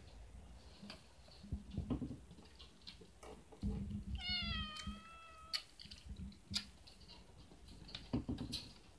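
A Siamese-mix mother cat gives one drawn-out meow, dipping slightly in pitch, about four seconds in: a protest at her kitten trying to nurse, as she refuses to let it suckle. Soft thumps and rustling come and go as the cats scuffle.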